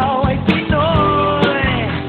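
Music: a song with a held, wavering sung line over a steady drum beat.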